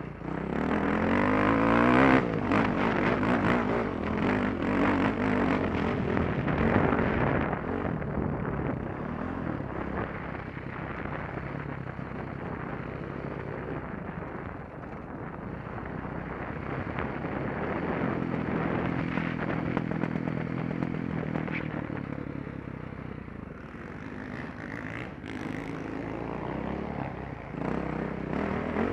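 KTM dirt bike engine revving up and down as it is ridden, loudest over the first several seconds, then running lower and steadier before picking up again near the end.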